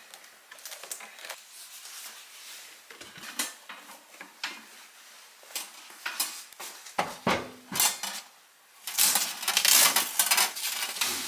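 A kitchen cabinet opened and a fabric storage bag lifted out and handled: scattered clicks and knocks, then a dense rustling of the bag for the last couple of seconds as a hand goes into it.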